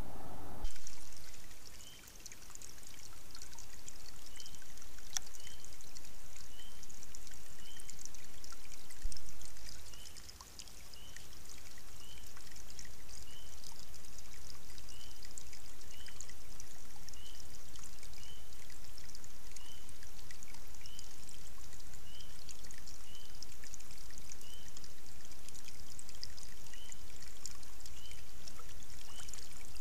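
Water running and trickling steadily through a beaver dam of sticks and mud, with a short high chirp repeating about once a second. Twice the level jumps suddenly, then falls away and recovers.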